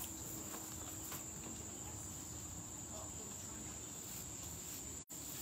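Insects trilling in a steady high-pitched drone over faint outdoor background noise, the whole sound cutting out for an instant near the end.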